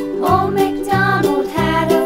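Children's music with a steady bouncy beat, and a melody line that comes in just after the start.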